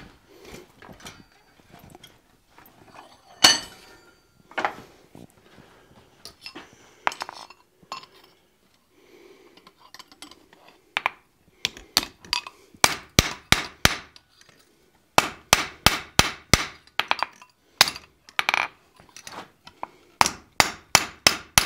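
Hand hammer striking hot steel bar on an anvil, in short bursts of about three blows a second through the second half. Before that come scattered clinks of metal tools and stock being handled, with one loud clank a few seconds in.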